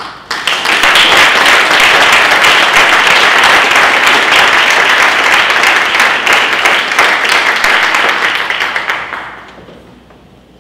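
Audience applauding to welcome a speaker to the lectern. The clapping builds quickly about half a second in, holds steady, and dies away after about nine seconds.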